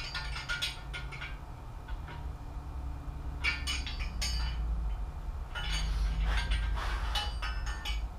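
Metal hand tools clicking and clinking against a balance shaft bearing installer in a bare engine block as it is worked with a wrench. The clicks come in three irregular bursts over a steady low hum.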